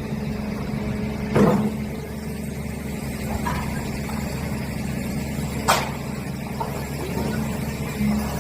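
Steady low rumble with a constant engine-like hum, broken by two short sharp knocks, about a second and a half in and again near six seconds.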